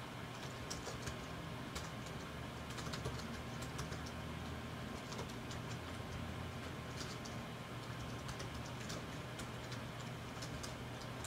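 Typing on a computer keyboard: irregular light key clicks, some in quick runs, over a faint steady low hum.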